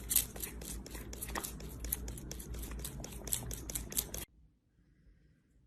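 A rapid, irregular series of light clicks or taps, several a second, over a low hum, cutting off suddenly about four seconds in.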